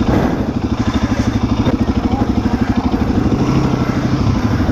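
Suzuki DR-Z400's single-cylinder engine running steadily at low revs, with an even, rapid pulsing beat.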